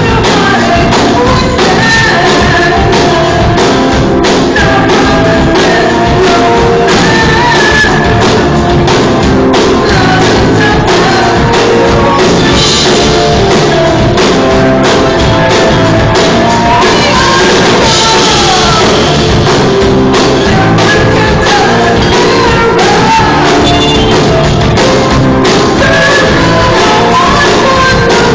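A karaoke singer singing a rock song over loud rock backing music with a steady drum beat.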